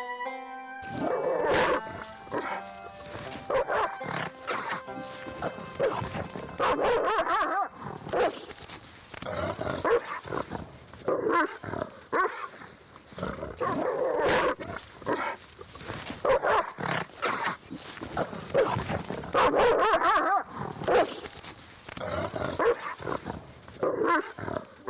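A dog barking over and over in quick runs, with background music beneath.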